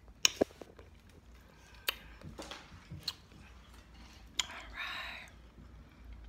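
Close-up handling noise: a few sharp taps and clicks as the phone is moved in close, and a short voice-like sound a little past halfway.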